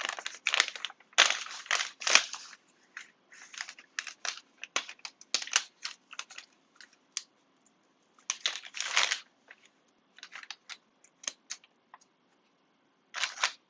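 Plastic MRE food pouch being handled, crinkling and rustling in irregular bursts, loudest in the first two seconds and again a little past the middle.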